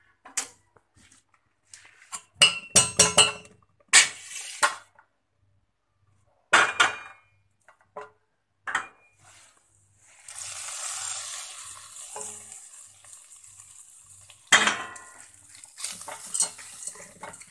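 A wooden spatula knocking and scraping against stainless steel cookware, a quick run of sharp knocks followed by a few scattered ones. Then a steady sizzling hiss for about four seconds as the hot oil tempering for lemon rice is poured over the cooked rice, and one loud knock of the spatula on the pot near the end.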